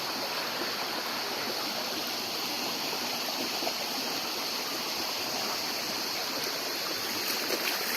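Steady rush of flowing water from the Gizlikent river and waterfall.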